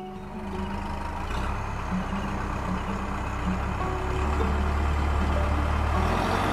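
Tractor engine running with a heavy low rumble, growing louder a little over a second in and again around four seconds in.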